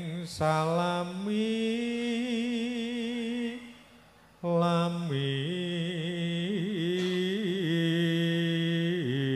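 A man chanting a Javanese puji sesanti prayer solo, holding long wavering notes, with a short break about four seconds in before the next phrase.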